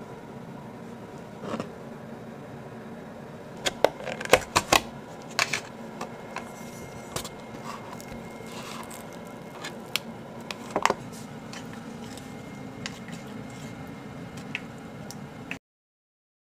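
Kitchen handling sounds: sharp clicks and clatters of plates, a wooden spoon and plastic food containers being set down and moved, over a steady low hum. The clicks come in a cluster a few seconds in and again around the middle, and all sound cuts off suddenly near the end.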